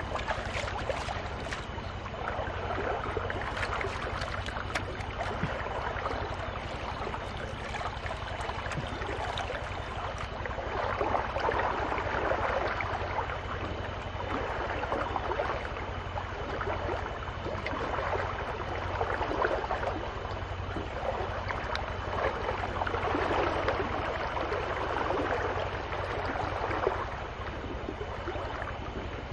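Water sloshing and swishing in a wooden gold pan as it is swirled, rising and falling in swells every few seconds, over a steady low hum.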